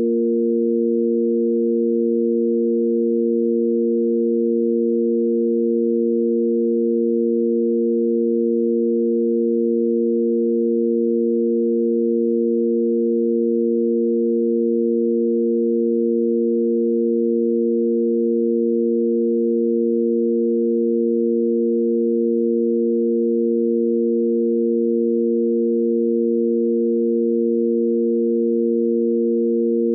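Sine-wave tanpura drone in A#: three steady pure electronic tones sounding together, the root A#, its fifth F and the A# an octave above, held unchanging as a pitch reference for singing.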